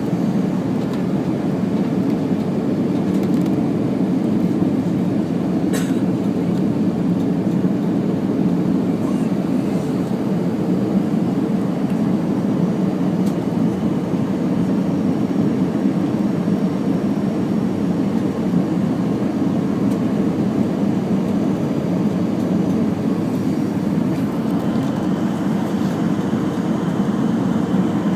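Steady, even rumble of an Airbus A319 airliner in flight, engine and airflow noise heard inside the cabin. There is a single short click about six seconds in.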